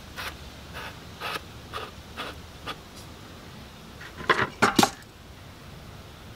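Light metallic clicks and scrapes, about two a second, from the fuel filter and its sediment bowl being worked loose by hand on a Ford 1910 tractor's diesel engine. About four seconds in comes a quick run of four or five louder metal clinks.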